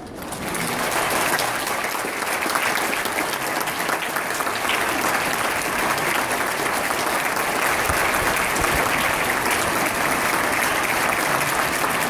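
Audience applauding, the clapping building up over the first second and then holding steady.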